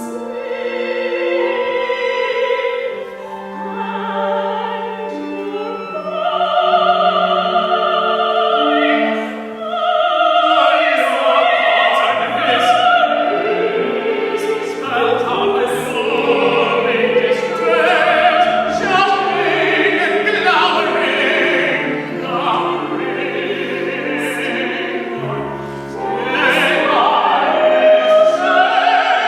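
Opera music: singing voices with instrumental accompaniment, the texture growing denser about ten seconds in.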